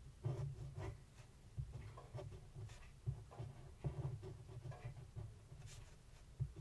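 Fineliner pen scratching across paper in many short, irregular strokes as small patterns are drawn, picked up close to the microphone.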